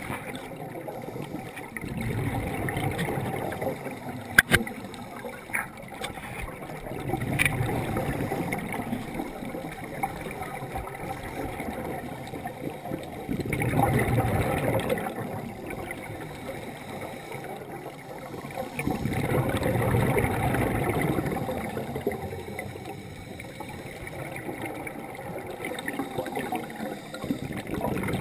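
Underwater, a scuba diver's regulator releasing exhaled air in slow gurgling surges several seconds apart, one per breath, with a few sharp clicks in the first several seconds.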